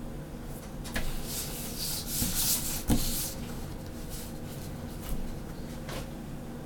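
Paper and a plastic grid ruler being slid and repositioned on a wooden tabletop: a click, a rushing slide of about two seconds ending in a sharp knock, then a couple of light taps.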